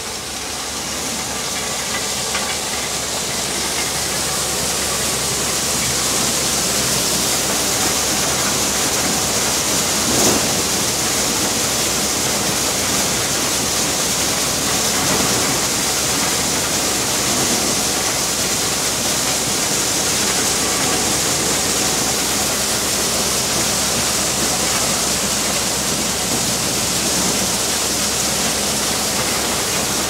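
Tractor-driven corn sheller running steadily under load, a dense rushing hiss of the threshing drum and blower with a low steady engine hum beneath, as maize cobs are fed through. It swells over the first few seconds and then holds level, with one brief louder knock about ten seconds in.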